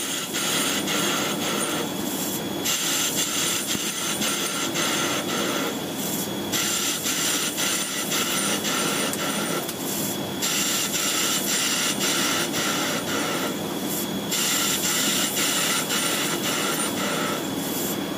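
CNC lathe grooving an aluminium bar: the spindle runs with a steady low hum while the grooving tool cuts in repeated passes. Each pass gives a high hiss with thin whistling tones that lasts a few seconds and breaks off briefly about every four seconds.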